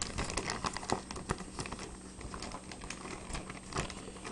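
Irregular crinkling, rustling and light tapping of trading cards and plastic packaging being handled.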